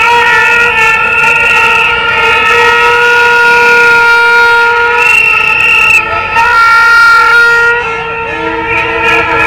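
Many plastic toy horns blown by a crowd of marchers at once, several long held notes at different pitches overlapping in a loud, continuous honking; the mix thins briefly about six seconds in and again near eight seconds.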